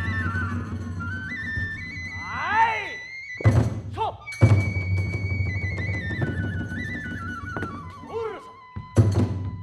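Kagura music from a transverse bamboo flute and drums: the flute holds a melody that steps up and down over a steady drum rumble. Loud drum and hand-cymbal strikes land about three and a half, four and a half and nine seconds in.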